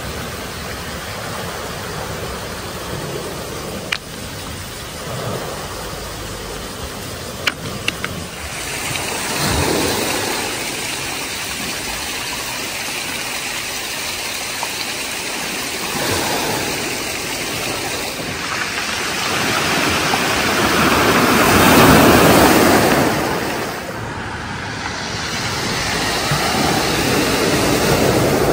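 Sea waves breaking and washing up a pebble beach as a steady rushing noise that swells twice, a smaller surge about a third of the way in and a big one some three quarters of the way through. A few sharp clicks sound in the first third.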